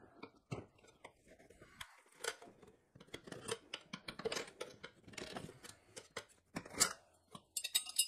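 Motion Pro tire irons scraping and clicking against a spoked motorcycle rim as the bead of an old knobby tire is levered off, in irregular scrapes and knocks with a quick run of clicks near the end.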